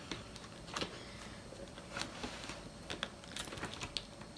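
Faint, scattered light clicks and rustles of a spiral-bound planner being handled: fingers and nails on its clear plastic cover and on a plastic ruler bookmark at the metal coil, with a few more clicks near the end.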